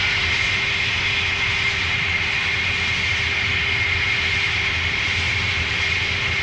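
A steady, loud roar with a high, steady whine over it, like a jet engine running.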